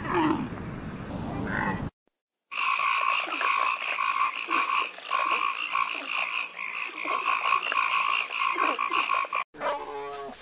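A dense chorus of animal calls: a rapid pulsing trill in two steady pitch bands, lasting about seven seconds.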